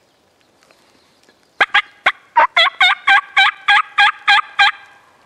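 Hen turkey yelps on a hand-cupped mouth call: a loud run of about a dozen sharp yelps at roughly three to four a second, starting about a second and a half in.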